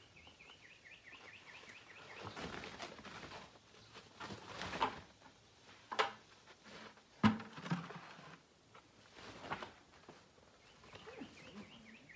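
Ears of sweet corn being dumped into a feed sack: husks rustling and ears knocking together, with several sharp thuds, the loudest about seven seconds in. Faint repeated chirping in the first second.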